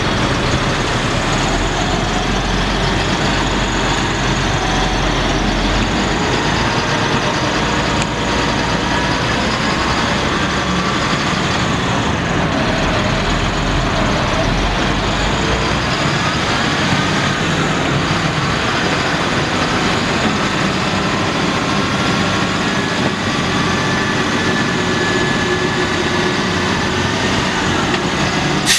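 The dump truck's Caterpillar 3126 7.2-litre inline-six turbo diesel engine running steadily, with a deep low rumble that fades about halfway through.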